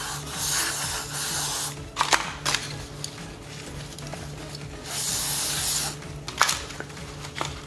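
Aerosol throttle body cleaner sprayed through its straw onto a dirty throttle body in two hissing bursts: a longer one of nearly two seconds, and a shorter one about five seconds in. A few sharp clicks come between the bursts.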